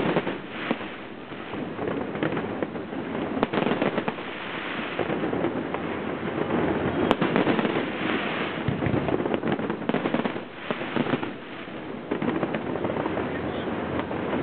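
Aerial firework shells bursting one after another, a dense, near-continuous run of bangs and crackling.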